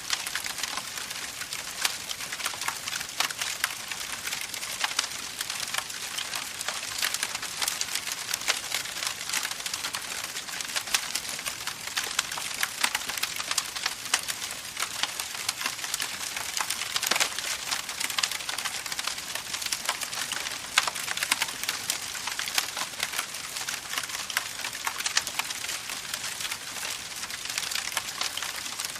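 Campfire burning: wood crackling, a dense run of small pops and snaps over a steady hiss, with one louder crack about seventeen seconds in.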